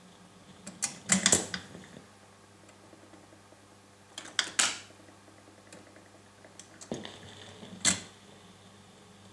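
Philips AG4116 automatic record changer cycling between 7-inch singles: three bursts of mechanical clacking, about a second in, halfway and near the end, as the tonearm lifts and swings clear, the next record drops from the stacking spindle onto the platter, and the arm sets down. A faint steady hum runs underneath.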